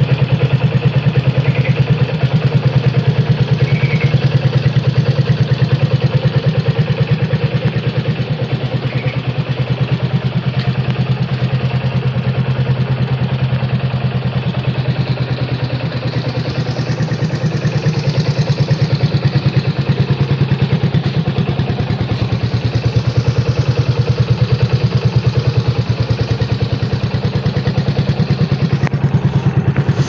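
Yamaha Jupiter MX's 135 cc liquid-cooled single-cylinder four-stroke engine idling steadily on its stand, with a quick, even exhaust beat.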